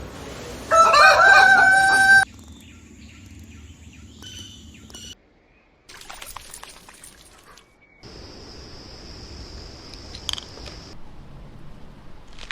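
A rooster crows once, loud, about a second in, lasting around a second and a half. It is followed by several quieter short clips that start and stop abruptly, with a steady high tone running for about three seconds near the end.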